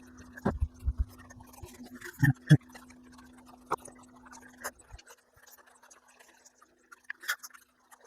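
Scattered clicks and knocks of hands and small tools working on a Poulan chainsaw's fuel lines and carburetor, over a steady hum that cuts off about halfway through.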